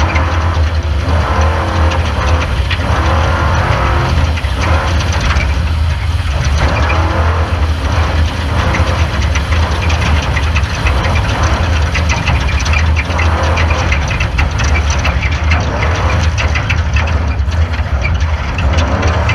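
Off-road race car running at speed: a steady low engine drone under a rough hiss with rattling and clatter from the car over rough ground.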